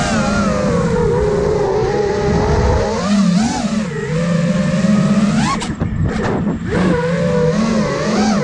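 iFlight Nazgul Evoque F5 five-inch FPV quadcopter's brushless motors and propellers whining, the pitch swinging up and down with the throttle. About five and a half seconds in the pitch drops sharply and shoots back up twice, as the throttle is chopped and punched.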